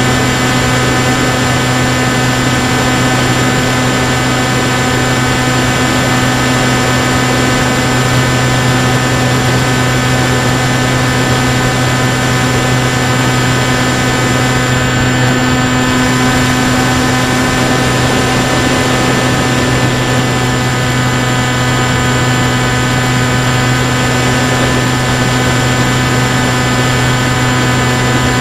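FX-79 Buffalo flying wing's electric pusher motor and propeller droning at a steady throttle, picked up by the onboard camera, with air rushing past the airframe. The pitch holds steady throughout.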